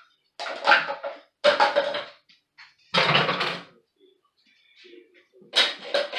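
Cups being set into a dishwasher's top rack: four main clattering knocks against the rack and each other, with small clinks between.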